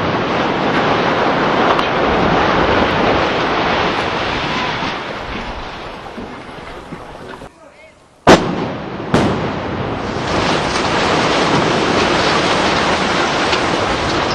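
Explosive demolition of a high-rise block: a steady rumbling rush fades out, then about eight seconds in two sharp detonation blasts about a second apart, followed by the steady rumble of the building collapsing.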